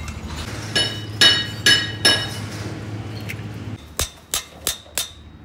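Hammer blows on metal: four ringing strikes about half a second apart, then after a pause four short, sharper knocks near the end.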